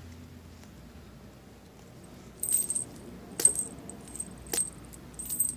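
A Daikoku lucky mallet covered in metal coins jingling as it is brought down on a wallet lying on a cushion, a few strikes about a second apart, starting about two seconds in.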